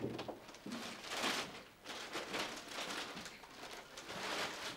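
Irregular rustling and knocking as a person handles belongings on a table and moves about a small room.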